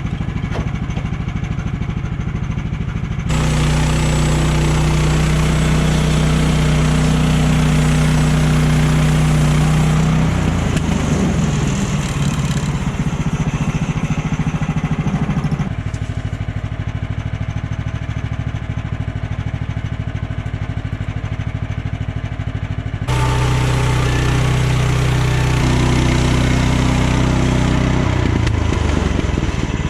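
Woodland Mills HM130 portable band sawmill's gas engine running at low speed, then throttled up twice to a louder, higher run with the band blade going, its pitch wavering under load, and dropping back to low speed in between and near the end.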